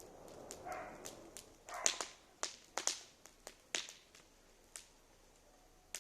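Wood fire crackling, with sharp pops at irregular intervals over a faint hiss.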